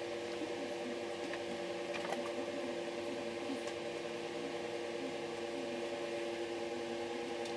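A steady, unchanging hum made of several fixed tones, with a few faint light clicks of metal parts being handled.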